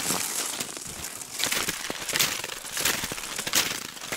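Cross-country skis skating on a groomed snow trail: the scraping crunch of ski edges pushing off and the sharp clicks of pole plants, coming in an uneven rhythm of strokes.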